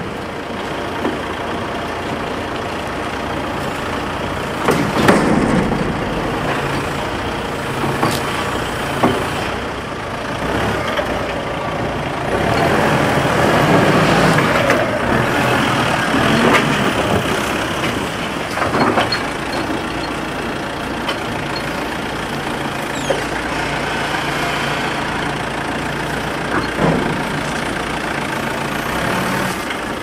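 Forklift engine running steadily as it works, growing louder for a few seconds around the middle, with scattered knocks and clunks of the forks and logs.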